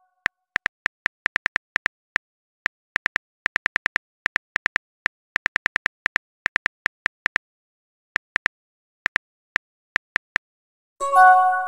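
Phone keyboard tapping sound effect: irregular single key clicks, several a second with short pauses, stopping about 10 seconds in. A short multi-tone message chime sounds near the end.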